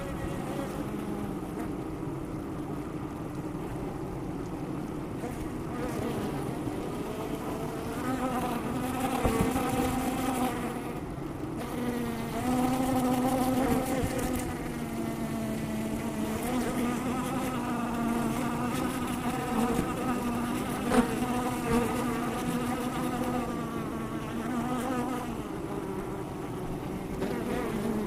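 Honey bees buzzing close by: a wavering hum that swells louder twice near the middle. A couple of short ticks come about three-quarters of the way through.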